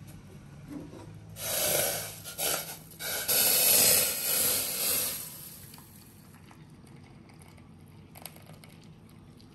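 Hot mint tea poured from a steel saucepan through a mesh tea strainer into a glass cup: a loud splashing hiss of liquid, broken by a few short pauses, for about four seconds, then dropping to a faint trickle.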